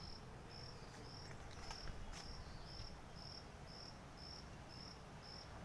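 A cricket chirping steadily, short high chirps at an even pace of about two a second.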